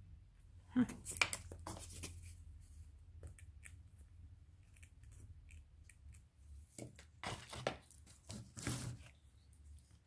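Rustling and light clicks of small craft decorations being handled and set down on a table, coming in short spells about a second in and again from about seven to nine seconds.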